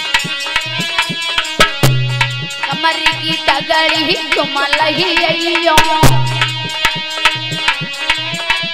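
Instrumental interlude of a folk bhajan: a dholak beats a steady rhythm, with a chimta's jingles, under a sustained melody line. A deep drum note comes about every four seconds.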